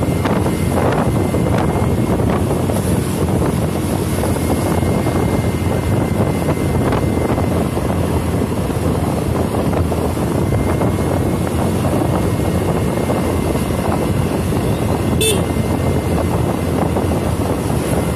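Motorcycle ridden at road speed: a steady rush of wind on the microphone over engine and tyre noise. A short high-pitched chirp sounds once near the end.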